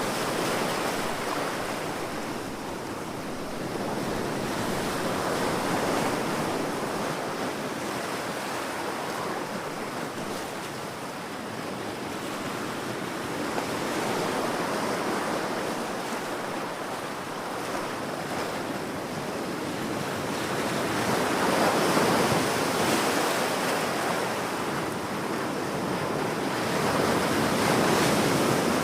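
Ocean waves breaking and washing on a beach, a continuous surf that swells and eases every few seconds.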